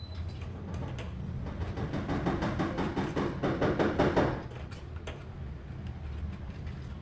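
Spiral steel drain snake rattling and scraping in a floor drain as it is fed in by hand to clear a clog, a dense rattle of clicks that builds from about a second and a half in, is loudest around four seconds, then drops away. A steady low hum runs underneath.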